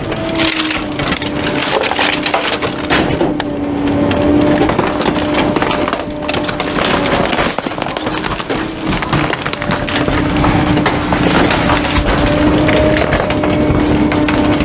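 Rear-loader garbage truck's packer blade crushing a leather loveseat in the hopper, the sofa's wooden frame cracking and splintering again and again, over a steady hum from the truck.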